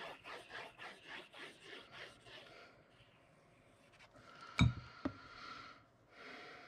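Plastic glue-bottle nozzle scraping across card in quick back-and-forth strokes, about three a second, as glue is laid in zigzag lines. After a short pause comes a sharp tap and a lighter one as the glued card panel is laid down on the desk, then a soft rubbing of hands pressing it flat.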